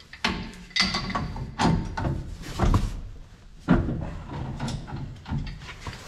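Pipe wrenches knocking and clanking on black iron gas piping while the gas line is worked loose: a string of irregular sharp metal knocks, a few with a brief ring.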